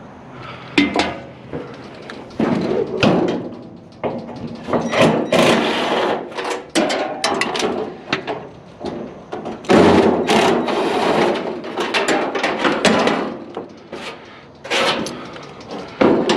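Repeated clanks, knocks and scraping of heavy scrap metal being shifted and handled, in irregular bursts with the loudest bang and scrape around ten seconds in.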